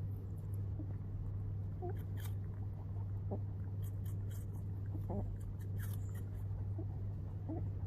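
Rabbit grunting in several short, quick grunts while crunching on a piece of apple, with sharp crunching clicks between the grunts over a steady low hum.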